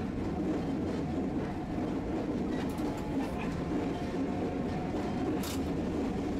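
Tosaden streetcar running on its tracks, heard from inside the car: a steady rumble of wheels and traction motor, with a short sharp click about five and a half seconds in.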